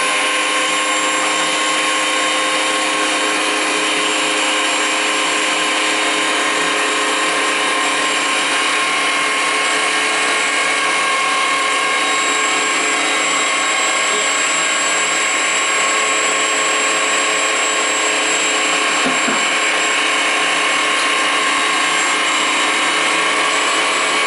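Bosch 1600 W electric meat grinder running steadily with an even motor whine, grinding tomatoes pressed down through its feed tube.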